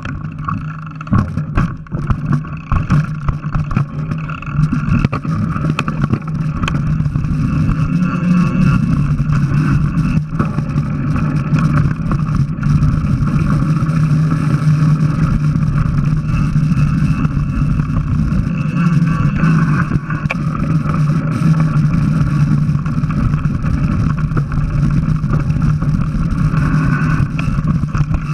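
Mountain bike ride noise heard through a bike- or helmet-mounted camera: tyres on a dirt trail, the bike rattling and wind on the microphone, a steady rumbling noise. Clicks and knocks from bumps in the first few seconds.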